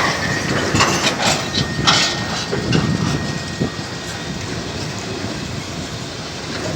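Freight train rolling past, its wheels clattering over the rail joints, with a cluster of sharp metallic clanks about a second in and a thin high squeal over the first two seconds.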